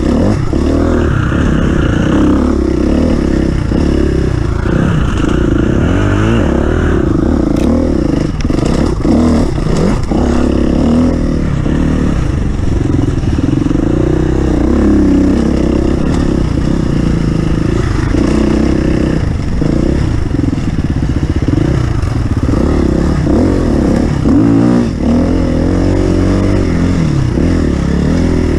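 Off-road racing vehicle's engine running hard, its pitch rising and falling continuously as it revs through the course, with rattling and clattering over the top.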